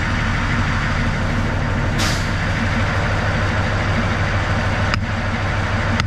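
Narrow-gauge diesel locomotive's engine idling steadily, with a short hiss of released air about two seconds in and two sharp clicks near the end.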